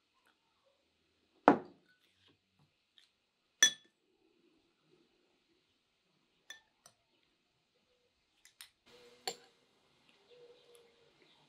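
Glass and dishware clinking: a sharp knock about a second and a half in, a ringing glassy clink near four seconds, then a few lighter taps and ticks.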